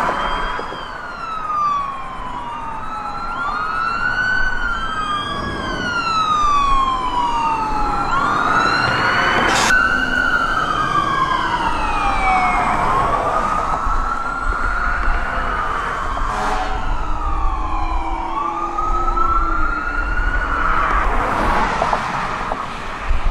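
Sirens of a fire engine and other responding emergency vehicles, several wailing at once in overlapping rising and falling sweeps, over a low rumble of road traffic.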